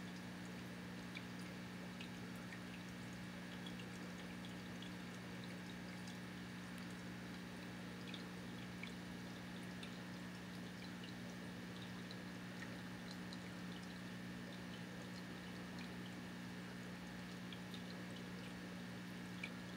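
Faint, steady electrical hum of several low tones over a soft hiss, with scattered tiny ticks.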